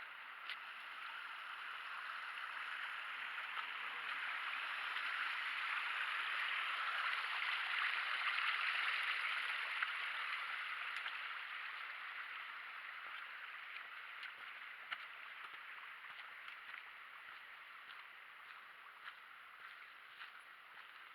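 Rushing water of a mountain stream. It grows louder to a peak about eight seconds in, then slowly fades away, with scattered small clicks over it.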